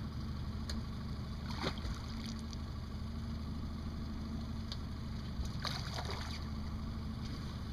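Boat outboard motor running steadily at idle, with a hooked fish splashing at the surface beside the boat: briefly about a second and a half in, and again for about a second near the six-second mark.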